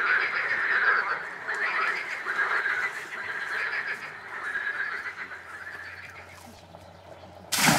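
Frogs calling in a chorus from a reedy lake, repeated rattling croaks that fade away over the last few seconds. A sudden loud burst of noise cuts in just before the end.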